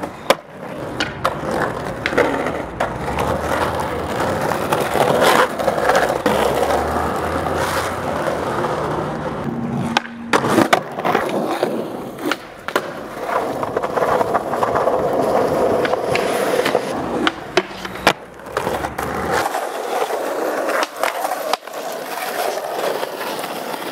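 Skateboard wheels rolling over pavement and asphalt, with sharp clacks and knocks throughout as tricks are popped and landed. The sound changes abruptly twice as one clip gives way to the next.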